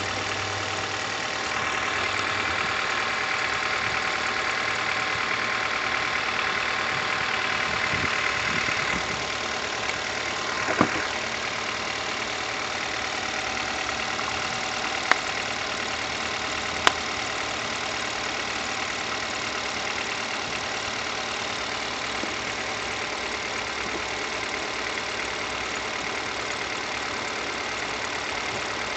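Car engine idling with the alternator belt squeaking: a steady high squeal over the engine, a little louder for the first several seconds. Three sharp clicks in the middle.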